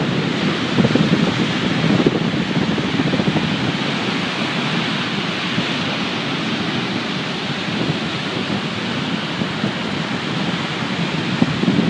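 Stormy sea: a continuous rush of rough surf, with wind gusting on the microphone.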